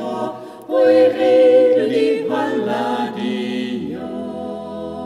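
Small mixed vocal ensemble singing a Carinthian folk song a cappella in close harmony. After a short breath a new phrase begins about a second in, and near the end the voices settle on one long held closing chord.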